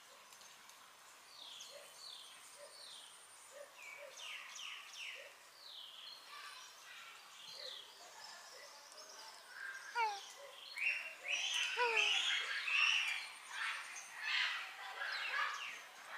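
Small birds chirping, many short falling notes one after another, growing louder and busier from about ten seconds in.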